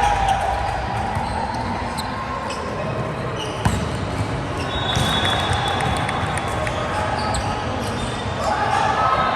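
Volleyball game play: ball hits, with one sharp strike of the ball a little over a third of the way in, and players' voices calling out over the steady noise of the court.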